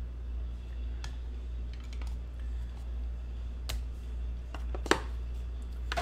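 Scattered light clicks and taps from hands working at a desk, with one sharper click near the end, over a steady low hum.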